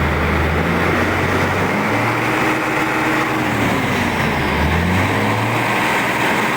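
Mitsubishi Fuso 6M70 inline-six diesel truck engine running after its crank-but-no-start fault was repaired. Its pitch rises about two seconds in and settles back down near five seconds.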